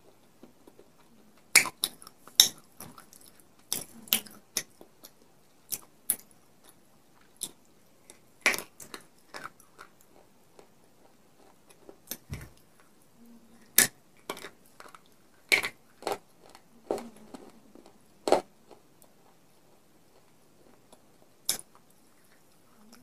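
Crunchy eating of baked clay pot pieces coated in white khadi chalk: about a dozen sharp cracks as pieces are bitten and snapped, scattered irregularly, with quieter chewing between them.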